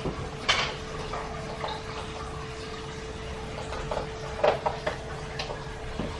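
A few light knocks and clatters of containers being handled, about half a second in and twice more near the end, over a steady faint hum.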